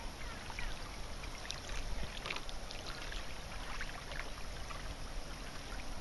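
Steady waterside ambience: small waves lapping gently at a rocky bank over a low rumble, with scattered faint high ticks.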